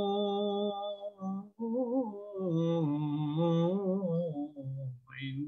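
Quran recitation chanted in a melodic style, with long vowels held on steady notes. The voice breaks off about a second in, goes on in a wavering melodic line, and pauses again shortly before the end.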